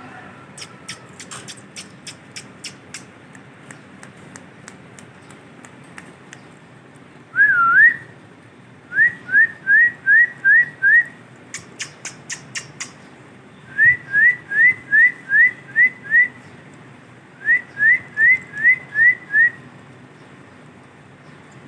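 Male ringneck parakeet whistling. One wavering whistle is followed by three quick runs of six or seven short rising whistle notes, with rapid series of sharp clicks near the start and again about halfway.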